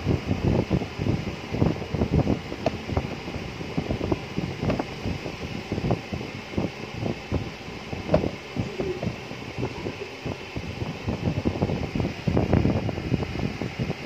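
Steady hiss of a fan running, with irregular rumbling buffets of moving air on the microphone.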